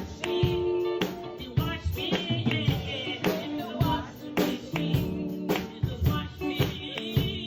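Upbeat gospel singing with a band: a sung voice with vibrato over a steady drum beat.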